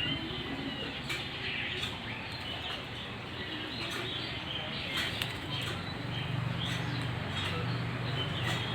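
A parrot chirping in short, scattered high calls, with a few sharp clicks or rustles, over a steady low hum.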